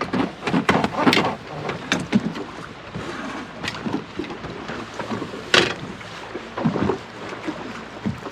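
Wind buffeting the microphone and choppy water slapping against a small boat. The slaps and knocks come irregularly, the loudest about a second in and again about two-thirds of the way through.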